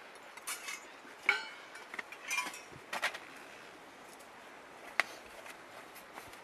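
Metal camping gear being handled: a run of clinks and clatters, the loudest a ringing metallic clank about a second and a half in, then a single sharp tick about five seconds in. A steady rush of river water runs beneath.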